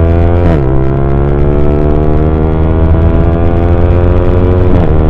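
Yamaha R15 motorcycle engine (155 cc single-cylinder) accelerating hard. The revs climb slowly and the pitch drops sharply at a gear change about half a second in and again near the end.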